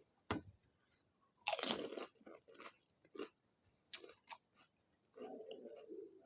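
A crisp pani puri shell crunching in a bite, loudest about one and a half seconds in, followed by chewing with several smaller crunches and clicks.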